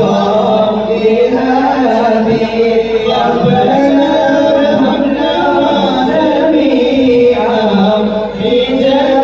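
A group of men singing an Islamic devotional song together through handheld microphones, the voices held in long, slowly bending lines.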